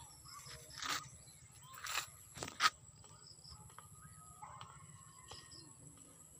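Steady high-pitched insect calls, one continuous and another coming and going in stretches of a second or two. A few short rustling noises fall in the first three seconds, the loudest about two and a half seconds in.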